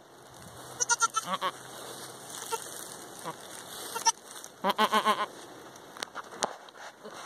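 Goat bleating twice, about a second in and again around five seconds in, each call wavering in pitch; the second is longer and lower. A few short clicks fall between the calls.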